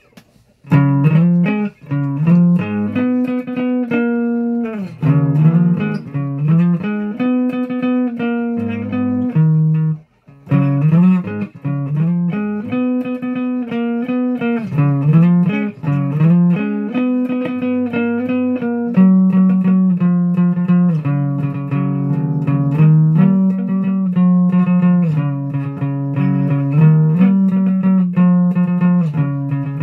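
Guitar music: plucked notes in a melodic line with a lower bass part, stopping briefly near the start and again about a third of the way in.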